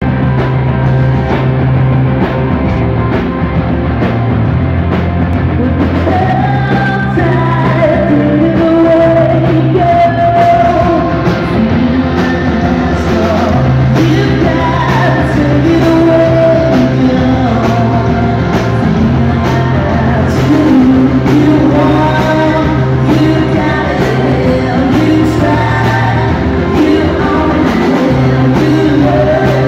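Live rock band playing: electric guitar, bass guitar and drums, loud and steady, with a male lead vocal singing from about six seconds in.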